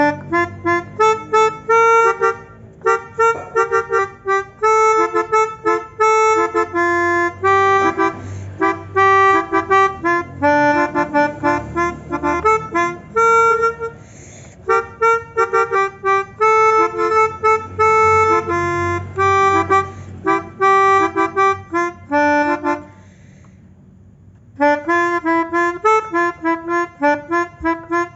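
Pianika (melodica) playing a Basuri telolet bus-horn tune in quick, short notes, phrase after phrase with brief pauses between, and a longer break of about a second and a half late on.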